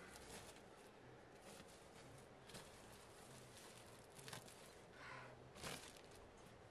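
Near silence: faint background hiss with a few soft knocks.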